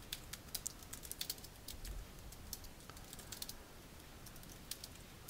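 Typing on a computer keyboard: quick, irregular key clicks, thinning out to a few strokes in the last couple of seconds.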